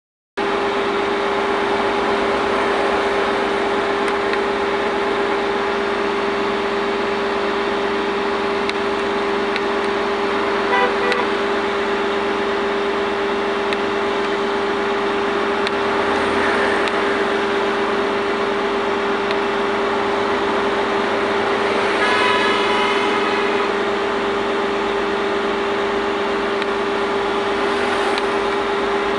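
Wirtgen cold milling machine running at its operator's station: a loud, steady machine drone with a constant whine. Short horn-like tones sound about eleven seconds in and again, longer, about twenty-two seconds in.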